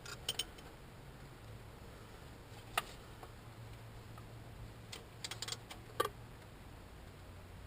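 A few light, sharp clicks and taps of hand tools working on the engine, a quick run of them about five seconds in, over a low steady hum.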